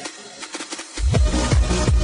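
Electronic dance music. The bass and kick drum drop out for about the first second, then come back with a steady beat.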